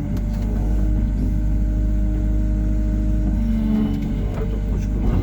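Hyundai R140W-7 wheeled excavator working, its diesel engine running under load with a steady drone and whine that shifts in pitch about three and a half seconds in. A few light knocks come near the end.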